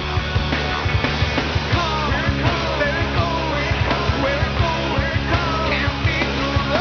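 Rock music with a steady drum beat and a melodic lead line.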